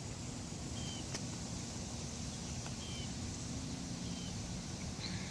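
Steady low outdoor background rumble, with a faint short chirp, like a small bird's, about every one and a half seconds.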